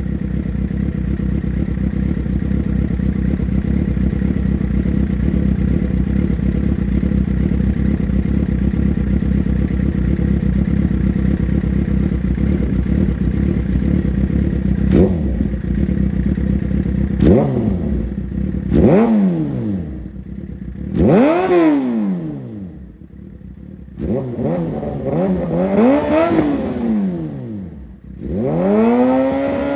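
Suzuki GSX-R600 inline-four engine running through an aftermarket exhaust: a steady idle, then several quick throttle blips that rise and fall in pitch over the second half.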